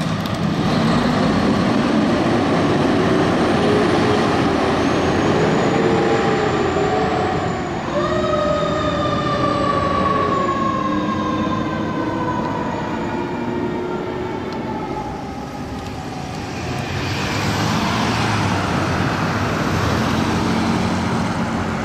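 Fire engine on an emergency call, its siren sounding over the diesel engine as it pulls away. The siren's pitch wavers up and down, then about eight seconds in it jumps to a higher note that slowly falls and fades. A broad road-noise rush swells again near the end.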